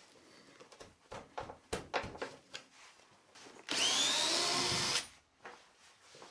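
Cordless drill/driver backing a wood screw out of a pine workbench top. A few light clicks and knocks come first, then a little over three and a half seconds in the driver runs for just over a second, its motor pitch rising as it starts, and stops.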